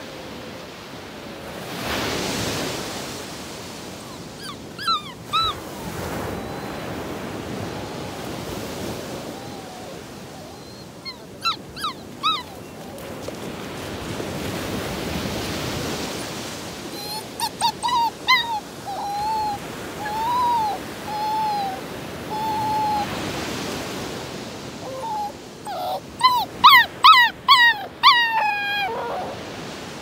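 A dog whining and whimpering in short, high cries that bend up and down, in clusters, with the loudest, quickest run near the end. Under it, surf breaks and washes in swells every several seconds.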